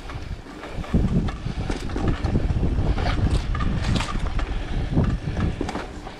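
Wind buffeting the microphone while a mountain bike rides over a rough trail, with the frame and parts knocking and rattling; it gets louder about a second in.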